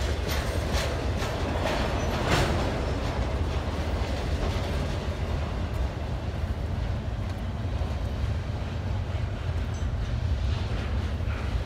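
Double-stack intermodal train's well cars rolling past: a steady low rumble of steel wheels on rail, with a few sharp clicks of wheels over rail joints in the first couple of seconds.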